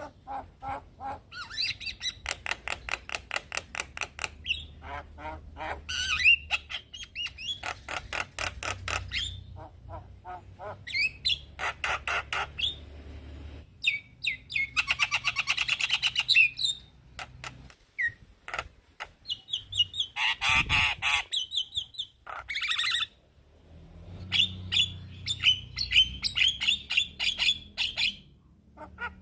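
Male Javan myna calling: long runs of fast, harsh chattering notes broken by short pauses, with a raspy squawk in the middle and a short whistled phrase a little later.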